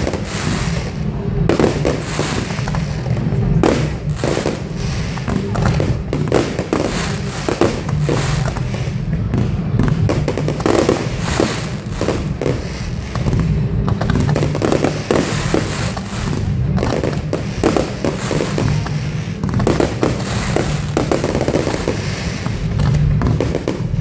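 Fireworks display: shells bursting one after another, many sharp bangs and crackles a few each second and overlapping, over a steady low rumble.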